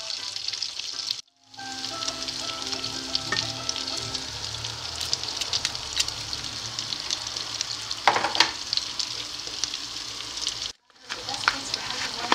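Melted butter and minced garlic sizzling and crackling steadily in a frying pan, with a brief louder hiss about eight seconds in. The sound cuts out for a moment twice.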